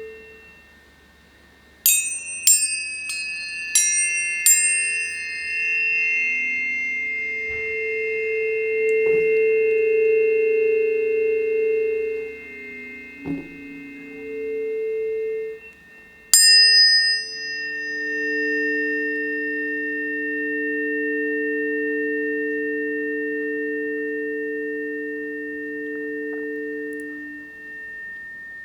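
Planetary tuning forks struck one after another, four quick strikes about two seconds in and another about halfway through, each with a bright metallic attack and then a long steady ringing tone. Lower sustained tones swell and fade beneath them.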